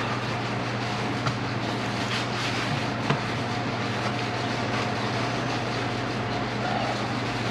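Steady mechanical hum with a faint steady high tone, and two light clicks, one about a second in and one about three seconds in, from handling the tractor lift cylinder piston and its new seal.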